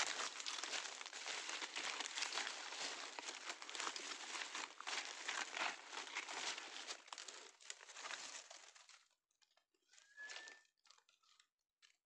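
Dry bamboo leaf litter crunching and crackling under someone moving and crouching through it, dying away about nine seconds in. Near the end there is a short rising high squeak and a few faint ticks.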